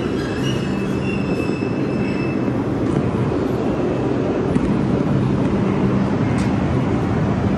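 New York City subway train of R142 cars rolling slowly along the platform, with a continuous rumble and a steady low hum. A faint high whine sounds over it for the first couple of seconds.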